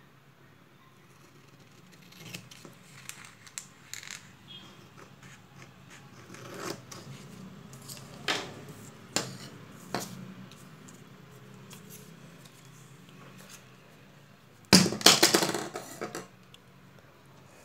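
A sheet of paper being handled and shifted on a wooden table: scattered light rustles and taps, then a loud rustle lasting about a second and a half near the end.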